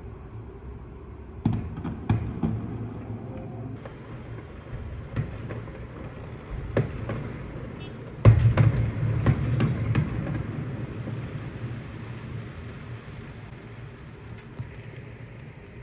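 Aerial fireworks bursting over a city: a scattered series of bangs, the loudest about eight seconds in followed by a rumbling volley lasting a couple of seconds, over a steady background hum.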